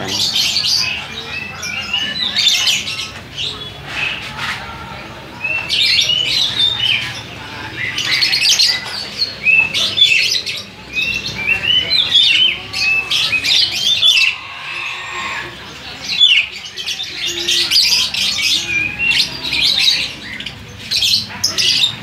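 Many caged birds chirping and squawking together, their short high calls overlapping almost without a break.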